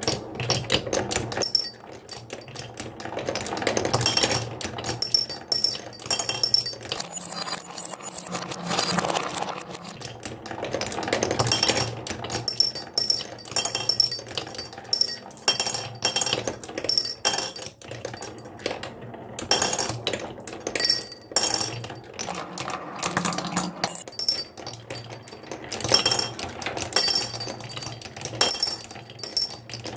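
Marbles rolling and clattering down a wooden marble run: a steady run of clicks and clinks, some ringing briefly.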